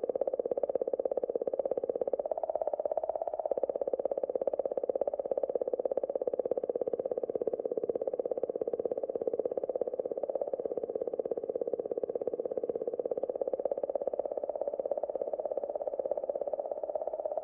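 Rosetta's 'singing comet' recording of comet 67P: oscillations in the magnetic field of the plasma around the comet, picked up by the spacecraft's magnetometer and sped up many thousands of times into audible sound. A steady, buzzing warble with a rapid flutter, wavering around one mid pitch and lifting a little about two seconds in.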